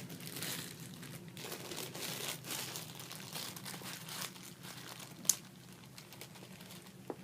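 Slime being squeezed and played with by hand: soft, irregular crackling and squishing, with one sharp click about five seconds in.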